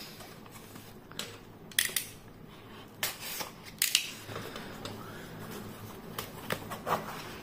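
A small cardboard shipping box handled and turned over in the hands: a scatter of short, sharp scuffs and taps on the cardboard, the loudest about two, three and four seconds in.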